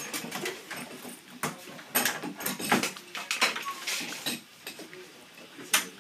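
Irregular metallic clanks and knocks of metal clamps and a steel bending strap as steamed wood is pulled round a wooden bending former and clamped in place, with a few louder knocks.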